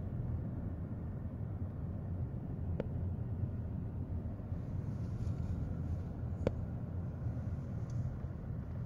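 Steady low rumble of a car's engine and tyres heard from inside the cabin while driving slowly, with two brief clicks, one about three seconds in and one about six and a half seconds in.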